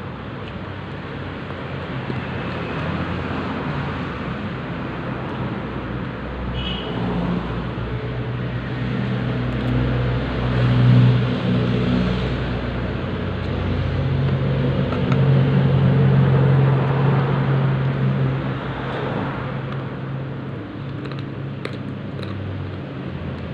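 Road traffic noise with vehicle engines running, swelling louder twice near the middle as vehicles come close.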